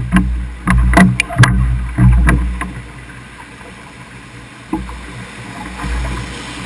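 Oars of a wooden rowing dory knocking in their oarlocks as it is rowed through a rapid, over rushing river water and a low rumble. Several sharp knocks come in the first two or three seconds, then it goes quieter, with one more knock near the five-second mark.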